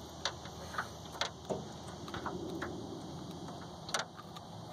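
A few short, sharp clicks and taps, scattered unevenly, over a steady background hiss.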